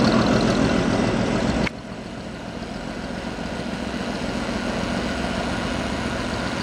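Árpád vintage diesel railcar running as it pulls away along the track, a steady engine and running noise. The sound drops abruptly about a second and a half in, then carries on more quietly.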